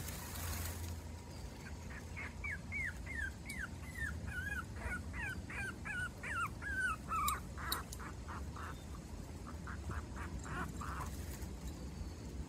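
Month-old Pomeranian puppy whimpering: a quick run of short, high, falling squeals lasting about five seconds, then a few shorter, fainter yips.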